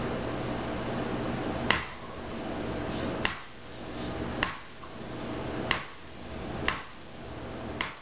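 Mallet tapping a small metal tool against leather to hand-pound stitching grooves into a leather sheath: six sharp taps, roughly one a second, over a steady low hum.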